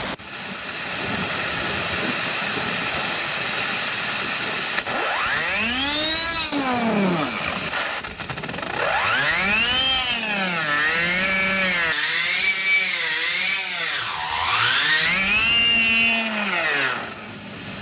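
Loud hiss of a 60,000 psi waterjet stream striking the edge of a steel saw-blade fidget spinner, which, about five seconds in, gives way to the spinner's high whine. The whine rises and falls in pitch several times as the blade speeds up and slows, then dies away near the end.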